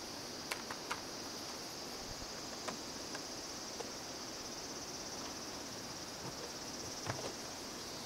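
A steady, high chorus of insects, with a few light clicks and knocks from handling 8×10 sheet-film holders: several just after the start, one near the middle and a pair about seven seconds in.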